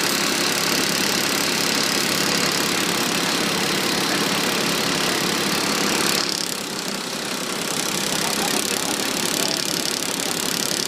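An engine idling steadily, dipping slightly in level about six seconds in.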